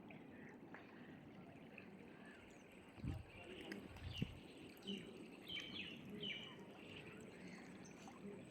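Birds chirping faintly: short, quick downward-sliding calls, several in a cluster about midway, over a steady background hiss. Two dull low thumps about three and four seconds in.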